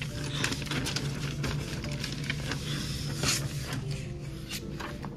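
Catena roll laminator running with a steady low hum, with many small crackles and clicks as laminating film and paper feed through the rollers.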